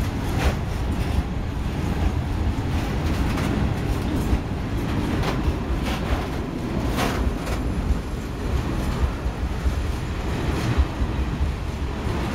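A freight train of Eaos open-top gondola wagons rolling past at close range: a steady low rumble of steel wheels on rail, broken by scattered clacks and knocks from the passing wheelsets.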